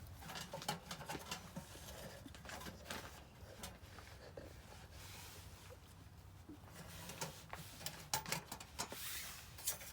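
Scattered light clicks and rustles at irregular intervals, busier about eight seconds in, over a low steady rumble.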